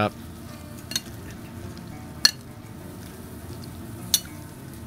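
A metal spoon stirring chunky cranberry and apple sauce in a glass bowl, over a steady low background noise. The spoon clinks sharply against the glass three times, at about one, two and four seconds in.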